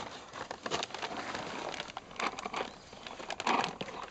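Rustling and crinkling of a paper-lined feed sack being rummaged through by hand, in short irregular bursts, the loudest in the second half.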